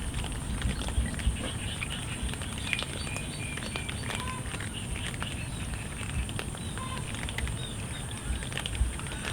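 Cats eating: a patter of many small chewing and crunching clicks over a steady noisy background, with a few brief high chirps now and then.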